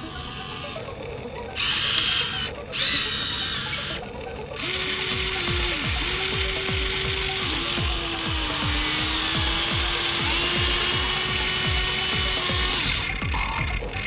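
Huina remote-control toy excavator's electric motors and gears whirring and grinding as its arm swings and digs into sand, with a steady whine from about five seconds in until near the end.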